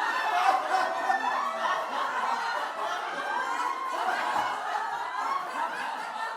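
People laughing, several voices overlapping in chuckles and snickers.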